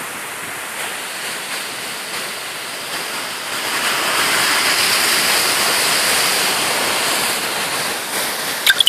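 Sea surf breaking and foaming among the breakwater rocks: a steady rushing wash that swells louder about halfway through and holds there, with a few sharp clicks at the very end.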